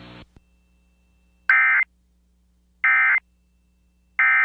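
Emergency Alert System end-of-message signal: three identical short bursts of SAME digital data tones, about a second apart, loud against near silence. This is the code that marks the end of the alert.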